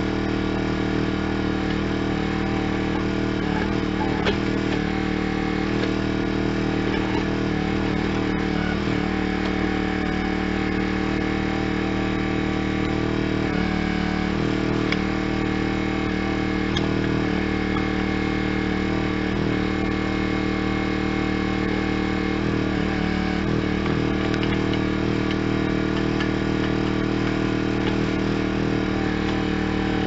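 Tractor engine running at a steady throttle, powering a tractor-mounted backhoe as it digs, with a few light knocks.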